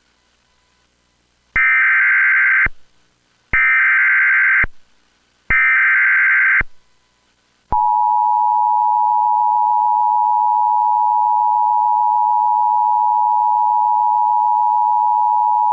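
Emergency Alert System header: three loud bursts of SAME digital data tones, each about a second long and about a second apart, followed about eight seconds in by the steady two-tone EAS attention signal, which marks the start of a new severe thunderstorm warning.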